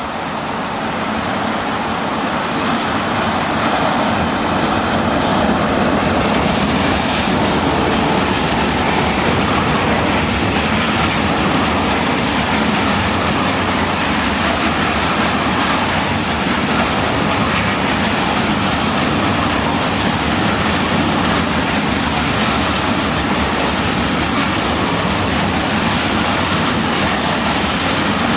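A freight train passing close by: a Czech class 371/372 dual-system electric locomotive goes past, followed by a long string of covered grain hopper wagons rolling steadily over the track. The sound swells over the first few seconds and then holds steady.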